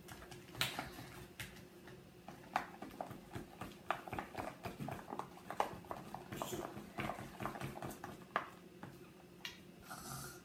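Slime being mixed and squished by hand: a quick, uneven run of small sticky clicks, squelches and pops.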